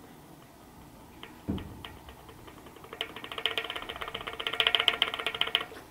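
Cup-and-cone bicycle hub axle being wiggled by hand, clicking as it shifts in slightly loose bearings: the small play left on purpose before the quick-release skewer is clamped. A few light clicks and a single knock come first, then from about three seconds in a fast, even run of clicks.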